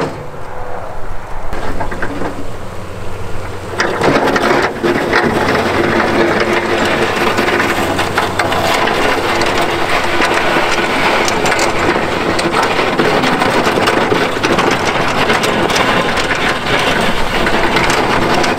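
Pickup truck's snowplow blade pushing and scraping through packed snow, a dense crunching and scraping full of small clicks over the steady hum of the truck's engine, starting about four seconds in.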